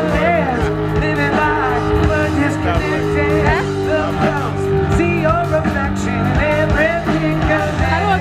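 Rock band playing: a singer over electric guitar, keyboard, bass and drums.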